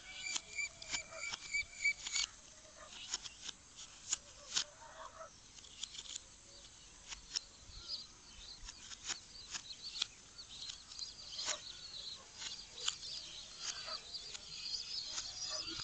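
Many sharp clicks and snaps as green bananas are broken off their stalk. Birds chirp and call in short repeated notes, most in the first couple of seconds and again near the end.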